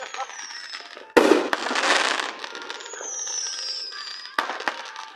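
Fireworks going off: a sharp bang about a second in, followed by a dense burst of crackling, then a whistle falling in pitch and another bang near the end.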